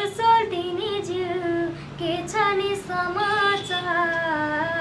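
A boy singing a Nepali song solo, in long held notes that bend and waver in pitch.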